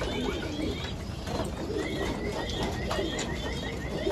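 Domestic pigeons cooing in a loft. About halfway through comes a fast, even run of high chirps.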